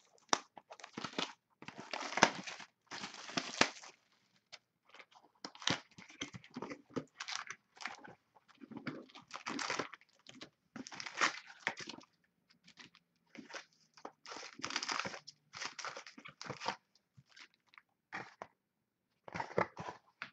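A cardboard trading-card hobby box, 2012 Topps Platinum Football, is opened by hand, and its wrapped packs are pulled out and stacked. The sound is irregular crinkling, rustling and scraping of cardboard and pack wrappers.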